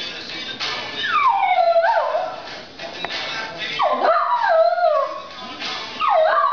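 Shetland sheepdog howling at a ringing phone: three long howls, each sliding down in pitch with a waver, about two and a half seconds apart.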